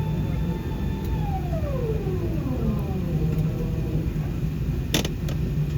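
Steady low hum of an Airbus A380 cabin before departure. About a second in, a steady whine winds down, falling smoothly in pitch as a machine spins down. A single sharp click comes near the end.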